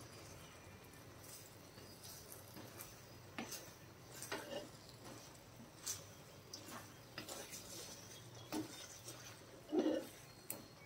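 Wooden spatula stirring thick wheat halwa in a brass kadai: quiet scraping with irregular knocks of the spatula against the pan, one louder knock near the end.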